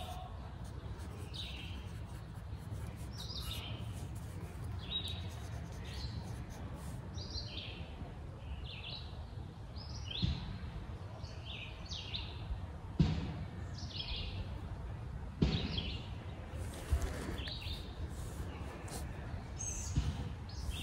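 Small birds chirping, short high calls repeating about once a second, over a low steady outdoor rumble. Several sharp knocks come in the second half, the loudest sounds here.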